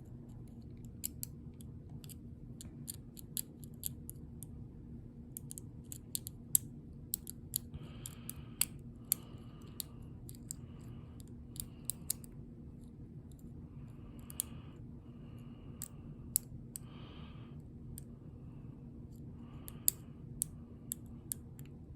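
A pick and tension tool working the pin stack of a Federal padlock: irregular small metal clicks with short scratchy scrapes as the pins are set. The lock has spool pins, which give a lot of give on the tension wrench.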